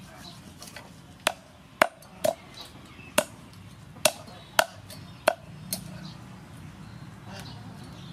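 Large knife chopping through the fins of a whole fish and striking a wooden chopping board: about eight sharp, irregular knocks over four or five seconds.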